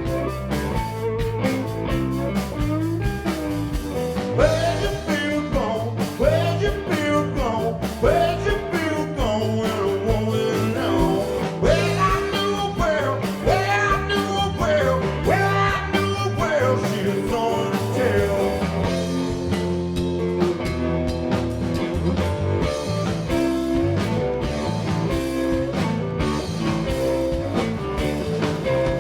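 Blues-rock band playing live, with an instrumental passage led by electric guitar; a lead line of bending notes runs through the middle.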